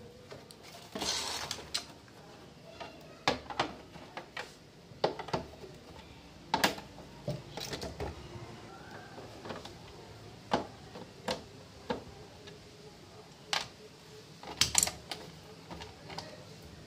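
Irregular clicks, knocks and scrapes of a screwdriver backing screws out of the plastic base of a mixer grinder, with the housing knocked and shifted on a hard floor as it is handled.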